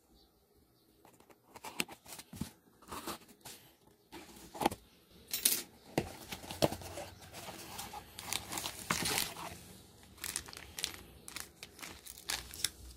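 Packing tape on a cardboard box being slit with a blade and torn open, with the cardboard flaps scraping and rustling, in many short, irregular rustles; a plastic bag crinkles near the end.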